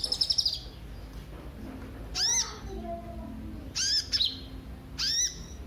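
Kolibri ninja sunbird calling: a rapid high trill that ends about half a second in, then three short, sharp, arched call notes about a second apart, one of them doubled.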